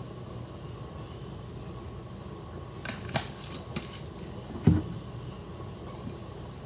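Steady fan-like hum in a small kitchen, with a few light plastic clicks from a spice jar and its cap about three seconds in, and one dull knock a little later.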